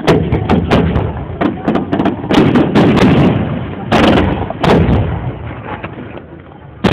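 Fireworks exploding: a quick run of sharp bangs in the first couple of seconds, then heavier booms every half second or so, with a rumbling tail that dies down before one more bang at the very end.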